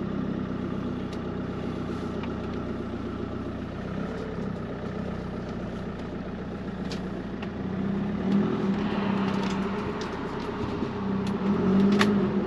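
Camper van engine running steadily, a low hum with a few faint clicks over it.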